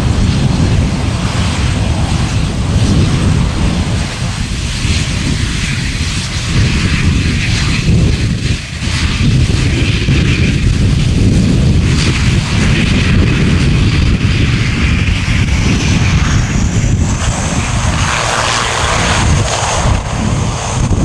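ATR 42 turboprop airliner's engines and propellers running as it moves along the runway. About 17 seconds in, a high whine rises in pitch and holds as the engine power comes up.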